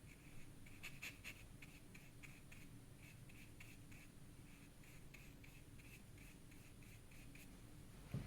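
Faint, quick scratchy strokes on paper, about three a second, from writing or painting on a colour chart, with a soft knock at the very end.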